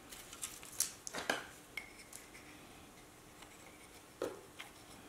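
Faint clicks and light scrapes of hands working copper foil tape and a plastic fid along the foiled edge of a glass piece, with a louder knock about four seconds in.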